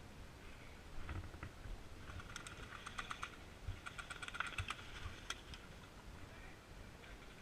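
Distant airsoft guns firing: irregular runs of sharp clicking pops, thickest in two bursts in the middle.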